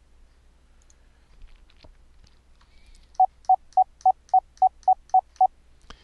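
Morse code dits from a software sine-wave code practice oscillator: a run of nine short beeps of one steady pitch, about four a second, starting about three seconds in. Faint clicks come before them.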